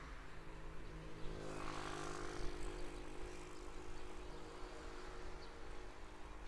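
Motor traffic passing a moving bicycle: tyre and engine noise swells about a second and a half in, and an engine hum carries on after it, over a steady low rumble of wind and road on the bike-mounted microphone.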